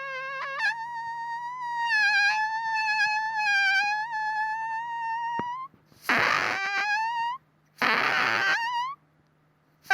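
Flatulence: one long, high-pitched squeaky fart that wavers in pitch and jumps higher about half a second in, lasting about five seconds. Then two short, noisy, sputtering farts, each ending in a rising squeak.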